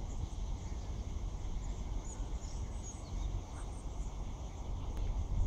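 Outdoor platform ambience: a steady low rumble, with a few short bird chirps about two to three seconds in.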